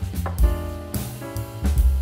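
Background music with a drum kit, bass and a melodic line of changing notes.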